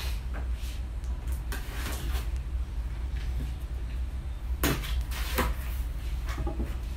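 Cardboard box being opened by hand: a blade cutting along the top, with scattered clicks and scrapes of cardboard and two louder scraping rustles a little past halfway in, as a flap is pulled open.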